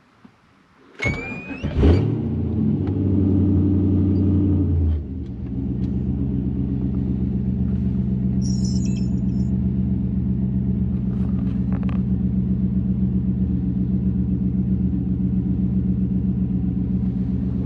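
LS V8 engine in a swapped Infiniti G35X cranked by the starter and firing about a second in. It runs at a brief fast idle, then drops at about five seconds to a steady, evenly pulsing idle.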